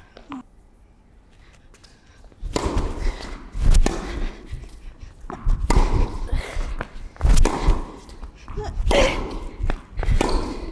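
Tennis rally on an indoor hard court: a racket strikes the ball about every two seconds, about six hits starting two and a half seconds in, echoing in the large hall.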